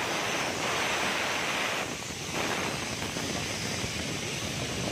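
Wind rushing over the microphone from a moving vehicle, a steady noise with road and engine sound beneath it, easing briefly about two seconds in.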